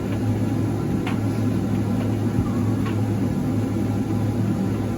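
Electrolux QDC commercial vented tumble dryer running a heated cycle: a steady hum and airflow rush from the drum and fan, with the heating elements on. A couple of faint taps from the load tumbling about a second and three seconds in.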